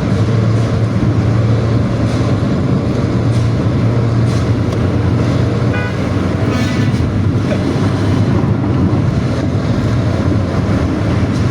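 Diesel intercity bus running hard with a 'ngorok' exhaust, a loud, steady, deep growling drone.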